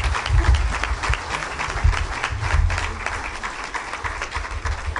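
A large audience applauding: dense, steady clapping from many hands, with heavy low thumps underneath.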